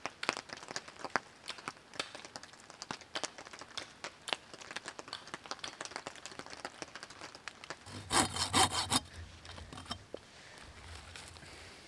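Scattered snaps and cracks of twigs and branches, then about eight seconds in a folding pruning saw cuts into wood with a quick run of about four strokes.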